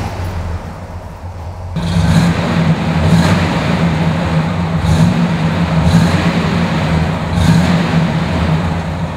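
1972 Cadillac Eldorado's 500-cubic-inch V8 starting up and catching about two seconds in, then running with a deep exhaust growl and blipped about four times.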